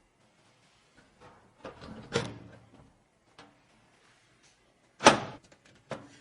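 Hard parts and packaging being handled: a few clicks, then a run of knocks and scraping about two seconds in, and a sharp knock about five seconds in followed by a smaller click.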